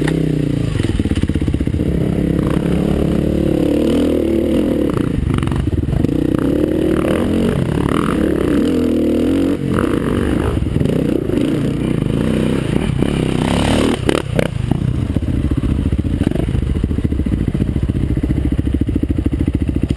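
Kawasaki KLX dirt bike's single-cylinder four-stroke engine running on an off-road trail, revs rising and falling continually with throttle changes. A few sharp knocks stand out about two-thirds of the way through.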